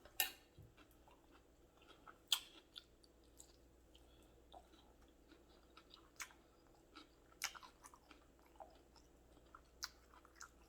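Faint chewing and mouth sounds from someone eating close to the microphone, with a few sharp wet clicks and smacks scattered a second or more apart.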